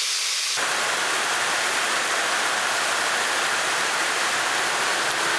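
Heavy rain coming down in a steady, even hiss, starting suddenly about half a second in.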